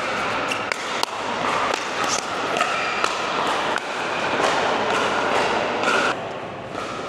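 Pickleball paddles striking the hollow plastic ball in a rally: a quick, irregular string of sharp pops a few times a second over a steady background din, thinning out after about six seconds.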